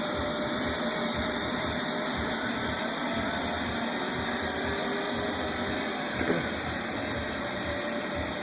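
Neato robot vacuum running steadily through a spot clean, an even hum of its motor and brush with faint steady tones. A brief knock or bump about six seconds in.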